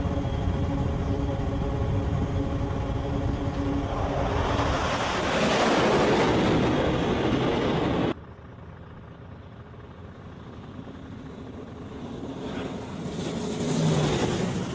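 Fighter jet engines at full power on a carrier's catapult: a steady whine over a loud rush that swells around five or six seconds in. After a sudden drop in level, a second jet's noise rises and peaks as it passes close near the end.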